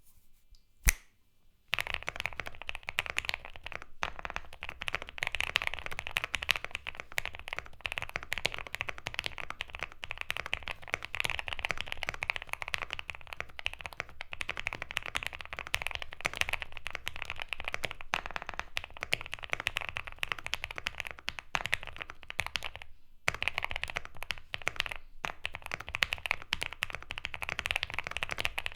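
Fast, continuous typing on a QK65 mechanical keyboard with lubed Gateron Box Ink Black linear switches and GMK keycaps. A single sharp click comes about a second in, and the typing stops briefly about two thirds of the way through.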